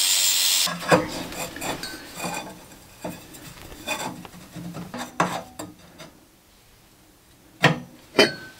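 An angle grinder with a 60-grit flap disc grinds the end of a steel square tube, then stops less than a second in. Scattered clanks and scrapes follow as the steel tube is handled and set into place in a welded square-tube frame, with two sharper knocks near the end.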